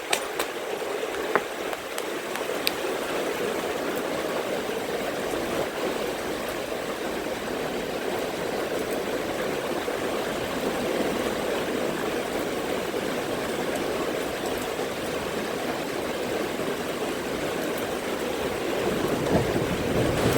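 Steady rain falling during a thunderstorm, an even rushing sound like running water, with a low rumble building near the end.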